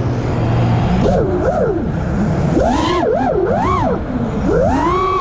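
Brushless motors and props of a 6S five-inch FPV freestyle quadcopter, heard through its onboard camera. About the first second is a low steady hum. From then on the motor whine swoops up and down in pitch in quick repeated arcs as the throttle is punched and chopped.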